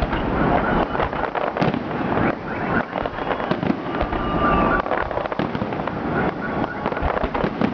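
Fireworks salute: many shell bursts and cracks in quick, irregular succession, with a few short whistles among them.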